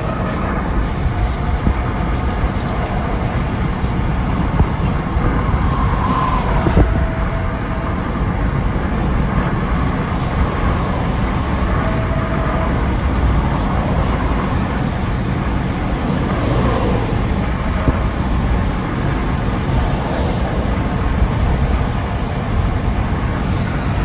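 Freight train of boxcars, hopper cars and tank cars rolling by in a steady rumble, mixed with the road noise of the car it is heard from inside.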